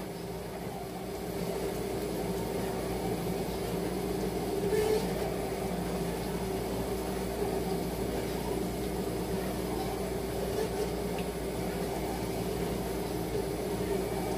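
Steady low machine hum with a few held tones, as from running medical or room equipment.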